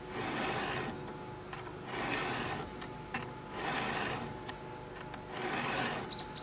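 Round chainsaw file pushed across the cutters of a Husqvarna battery chainsaw's chain: four slow, even rasping strokes about a second and a half apart, sharpening the teeth.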